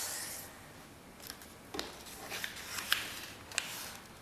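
A paper sheet being folded and creased by hand: a soft rustle at the start, then several short crisp crackles and taps as the fold is pressed down.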